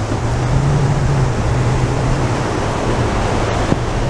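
Steady wind buffeting the microphone, a low rumble over the rush of breaking surf.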